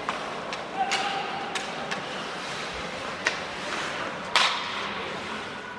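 Ice hockey play in an arena: a series of sharp clacks of sticks and puck, with knocks off the boards, over the steady scrape of skates on ice. The loudest clack comes about four and a half seconds in.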